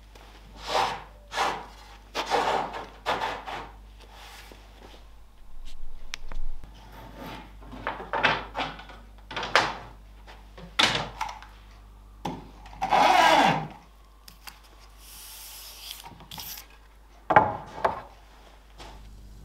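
Oak boards being handled on a wooden workbench as splined tread boards are fitted together and clamped: a string of separate wooden knocks, slides and scrapes, with a longer scrape past the middle and a sharp knock near the end.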